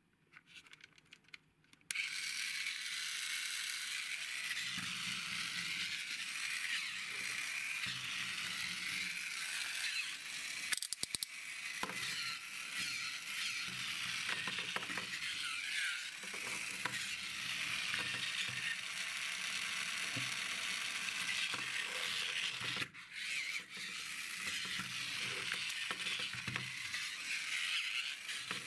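Battery-powered toy Jeep switched on: a few small clicks, then about two seconds in its small electric motor and plastic gears start a steady whir as it drives across a tabletop. A quick cluster of knocks comes about eleven seconds in, and the whir briefly drops near twenty-three seconds.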